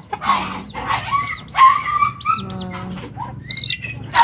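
A dog barking, two loud barks in the first two seconds, among the calls of Rhode Island Red chickens and chirping birds.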